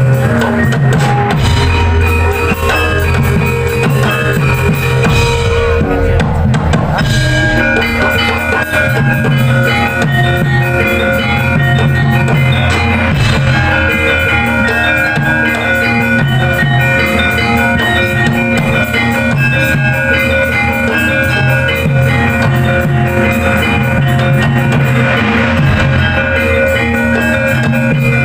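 Javanese gamelan ensemble playing: bronze saron metallophones struck with wooden mallets ring in a steady melodic pattern over rhythmic kendang drumming.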